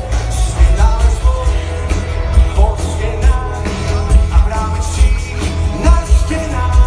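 Live pop-rock band playing loudly through a concert PA, with a lead vocal over a pounding bass and drum beat, heard from within the audience.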